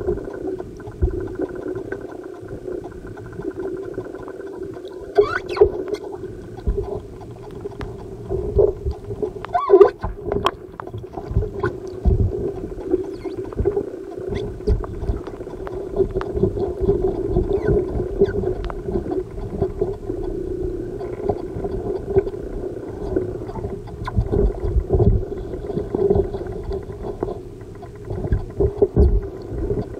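Muffled underwater sound of booted feet moving in a water-filled tub: a steady hum with low rumbling water movement, and scattered knocks as the boots shift against the tub, the strongest about five and ten seconds in.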